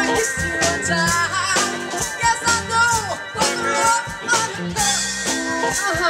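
Live band playing an upbeat song: women singing over electric guitar, bass guitar, keyboard and drum kit, with a steady drum beat.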